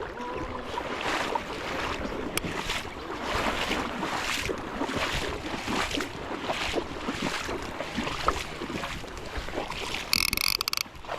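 Rushing creek water running high after rain, with gusty wind noise on the microphone. A short, harsh, high burst comes near the end.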